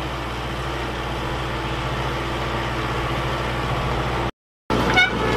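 LS XR4040 compact tractor's diesel engine running steadily while it works a plowed field. Near the end the sound cuts out for a moment, then resumes with a couple of sharp clicks.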